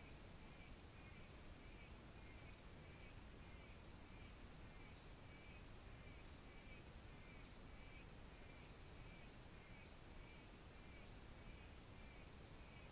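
Faint forest ambience: a small animal's short call repeating evenly, roughly twice a second, over a soft steady hiss.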